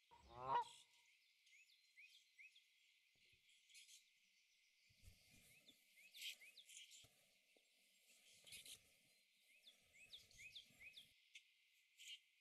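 A single short honk, goose-like, about half a second in, then faint high bird chirps over near-silent outdoor quiet.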